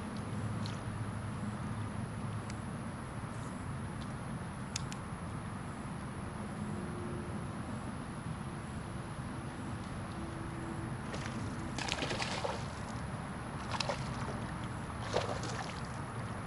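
A few short splashes and sloshes of water in the bayou, clustered a little past the middle, over a steady low rumble.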